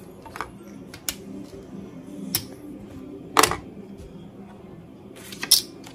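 Casino chips clicking down on the felt of a blackjack table as a bet is doubled, with cards being handled: a handful of short, sharp clicks, the loudest about three and a half seconds in, over a steady low hum.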